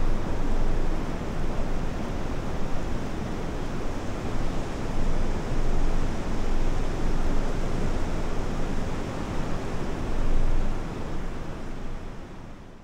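Surf from waves breaking offshore mixed with wind on the microphone: a steady rushing noise that swells and eases. It fades out over the last two seconds or so.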